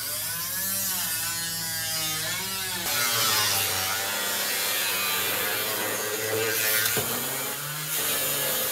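Angle grinder cutting through the sheet-steel body of a car. It runs with a wavering whine, then about three seconds in turns abruptly to a harsher, hissing cut.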